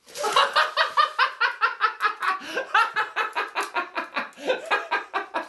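Hearty, uncontrolled laughter: a fast run of short "ha" pulses, about six a second, without letting up.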